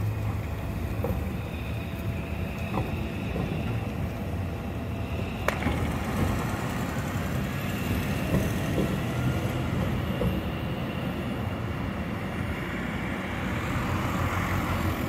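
Leipzig NGT10 (Solaris Tramino) low-floor tram running slowly through a street junction: a steady rumble of wheels on rail, a sharp click about five and a half seconds in, and a faint whine rising in pitch soon after. A car passes near the end.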